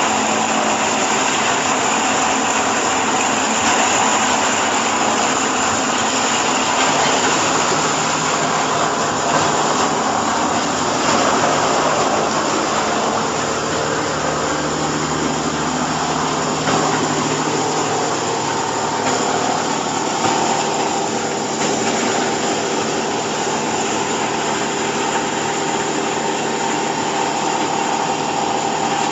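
Hydraulic baling and bagging press for chopped hay running: a steady, loud machine noise from its motor and hydraulic pump, with a low hum that comes in for a few seconds midway.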